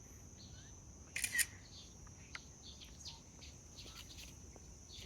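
Birds chirping, with short scattered calls and one louder, harsher call about a second in, over a steady high-pitched hum.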